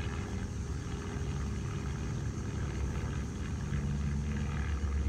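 Steady low engine rumble, growing a little louder and fuller near the end.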